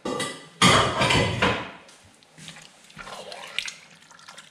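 Wooden spoon stirring chopped tomatoes and zucchini in a large stainless steel pot: wet squelching and sloshing, loudest in the first second and a half, then quieter scraping stirs.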